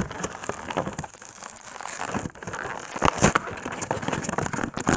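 Plastic blister packaging and the cardboard box being handled and worked at to free toy parts: dense, irregular clicking and crackling, with a louder knock about three seconds in.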